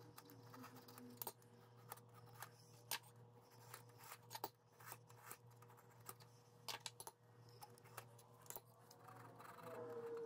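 Faint scattered scratches and light clicks of a steel caliper jaw scribing a centre line along a knife blank's edge through layout fluid, with metal tapping on the surface plate, over a low steady hum.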